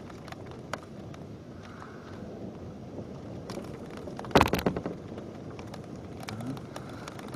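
Heavy rain falling in a thunderstorm, a steady hiss with scattered sharp taps of drops striking. About four and a half seconds in, a brief loud clatter of several quick hits stands out above the rain.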